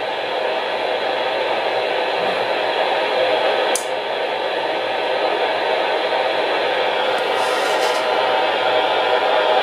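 Kenwood TM-241E 2 m FM transceiver's speaker playing a steady 1 kHz test tone in receiver hiss, the hiss growing as the test signal is stepped down toward about −110 dBm, near the limit of the receiver's sensitivity. One short click a little under four seconds in.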